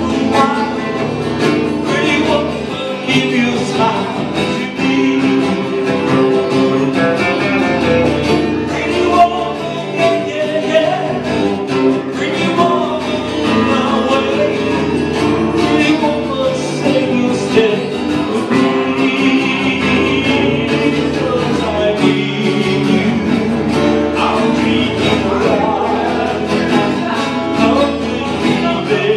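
Live performance of a song: a man singing into a microphone while playing acoustic guitar, accompanied by an electric guitar.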